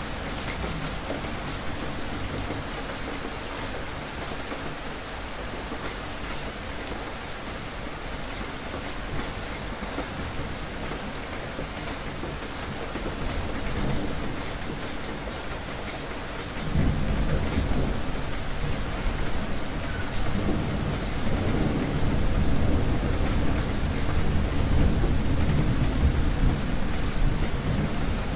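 Heavy rain falling steadily. A little past halfway, a deep roll of thunder breaks in suddenly and keeps rumbling, louder than the rain.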